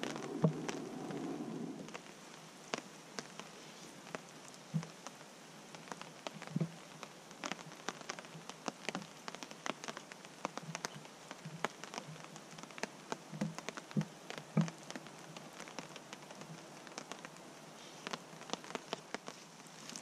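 Rain dripping on a tarp overhead: irregular sharp ticks of single drops over a steady faint patter, with a few duller knocks among them. A louder rustling noise stops about two seconds in.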